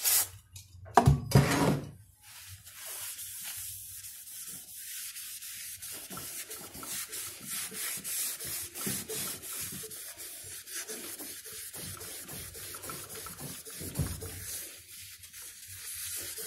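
Paper tissue wiping and rubbing the wooden plinth top of a turntable with isopropyl alcohol in quick back-and-forth strokes, a steady scratchy rustle. A brief loud noise comes about a second in, and a single soft bump near the end.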